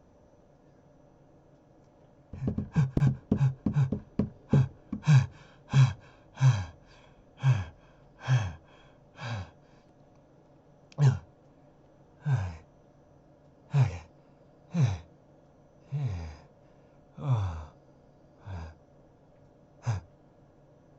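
A person's voice making repeated short, breathy gasps, each one falling in pitch. A quick run comes about two seconds in, then about one a second.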